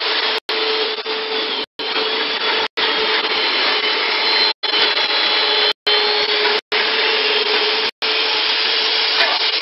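Wood pallet sanding machine running steadily as boards are fed through its sanding roller: a loud whirr with a steady hum under it. The sound drops out for an instant several times.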